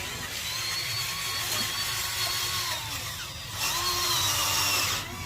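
Small electric motor and gearbox of a remote-control model tractor whining in two runs, the second louder, each dropping in pitch as it stops.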